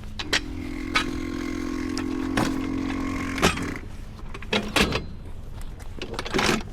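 A small electric motor whirring steadily for about three seconds, with sharp metallic knocks and clunks scattered through.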